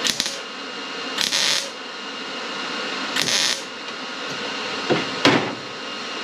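MIG welder laying three short tack welds on sheet metal, each a brief hiss well under half a second long, about one and a half to two seconds apart. Two sharp knocks follow near the end.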